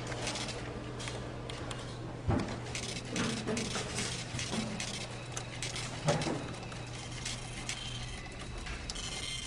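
Handling and movement noise with many small knocks over a steady low hum, with two dull thumps about two and six seconds in. The thumps fit an aluminium-framed briefcase being set down on a desk and handled.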